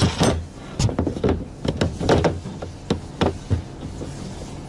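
Hand tools clicking and knocking against a stainless-steel fryer control box and steel worktop while wire terminals are worked off a switch: a string of sharp knocks, about two a second, thinning out in the last second.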